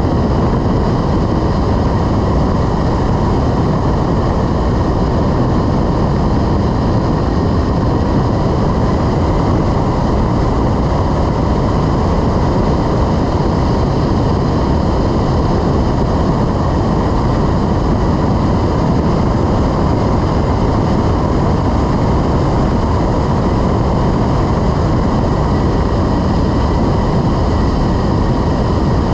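Steady, loud rush of wind over the microphone of a camera mounted on a rigid-wing hang glider gliding at about 30 mph, with a faint steady whine above it.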